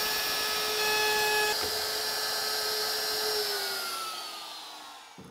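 Compact DeWalt router running at full speed while routing a hinge mortise in the cabinet. About three and a half seconds in it is switched off, and its whine falls in pitch and fades as the motor winds down.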